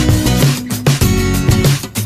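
Background music with a steady beat and strummed guitar.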